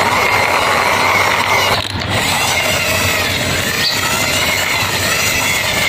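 Hard plastic wheels of a toy truck rolling along a rough concrete wall top under a pushing hand: a steady gritty rolling noise with a brief break about two seconds in.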